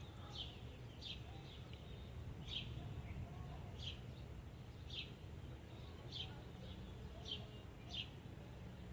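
A bird calling: short, high, falling chirps repeated about once a second, over a steady low rumble.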